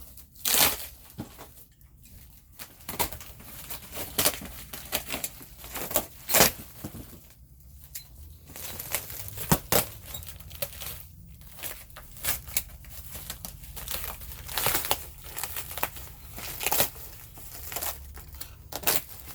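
A shipping package being opened by hand: packing material crinkling and tape or paper tearing, with irregular clicks and handling knocks.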